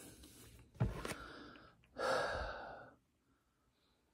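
A man breathing between sentences: a short click and breath about a second in, then a longer breathy exhale, like a sigh, about two seconds in.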